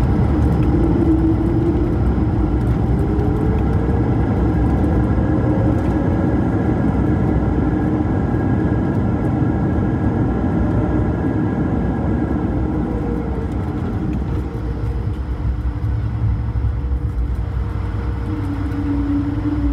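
Airbus A220-300 rolling out on the runway after landing, heard inside the cabin: a steady low rumble with the whine of its Pratt & Whitney PW1500G geared turbofan engines, which rises in pitch over the first few seconds and falls away about midway, with a lower engine tone returning near the end.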